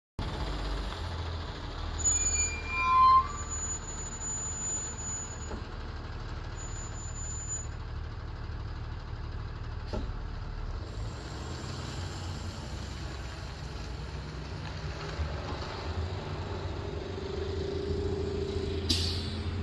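Box truck's diesel engine running as the truck pulls away and drives off, a steady low drone that builds a little toward the end. A few short high squeaks come about two to three seconds in, and a brief hiss comes near the end.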